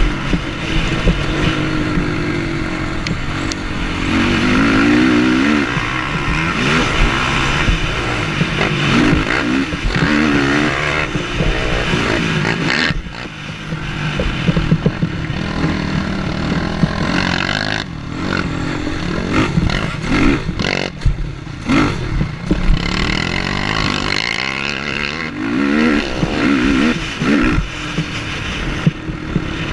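Sport quad engine revving hard and rising and falling in pitch as the rider works the throttle and gears at race pace, easing off briefly about halfway through. Rattles and knocks come from the quad bouncing over the rough dirt track.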